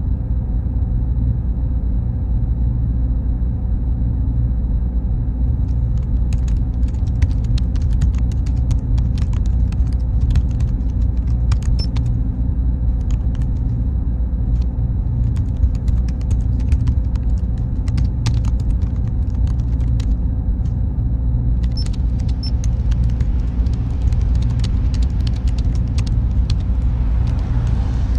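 Steady low server drone with a faint high whine, and computer keyboard typing in irregular runs of clicks starting about six seconds in. Near the end a car passes by with a rising hiss of tyres.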